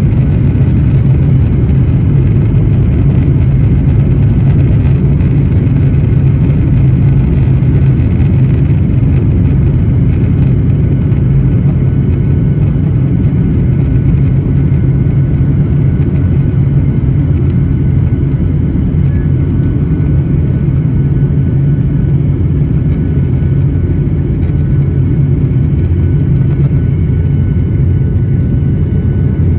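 Jet airliner engines at takeoff power, heard inside the cabin over the wing: a loud, steady low rumble with a faint high whine, running through the takeoff roll, the liftoff and into the climb.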